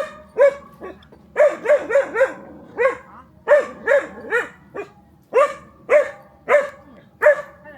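A dog barking repeatedly, about fifteen short barks, some in quick runs of three or four and others spaced about half a second apart.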